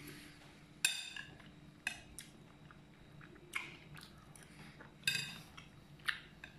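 Eating soup: a metal spoon clinking against a ceramic bowl about six times, a few clinks ringing briefly, with faint chewing between.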